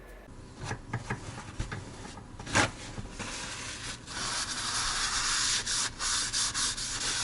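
A few sharp knocks, then a steady rasping, rubbing noise that breaks off briefly several times.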